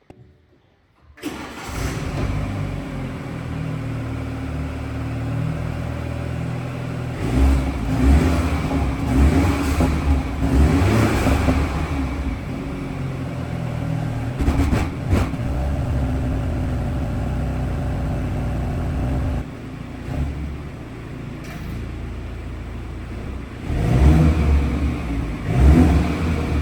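BMW 430i's turbocharged four-cylinder engine and exhaust: the engine starts about a second in, then runs and is revved twice, with louder swells in the middle and near the end. The exhaust flap valve is open in sport mode, giving the louder exhaust note.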